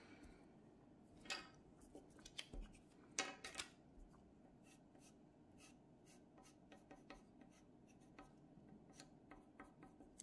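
Pencil scratching on paper in short shading strokes, with a louder run of strokes about a second in and again around three seconds in, then lighter scattered ticks.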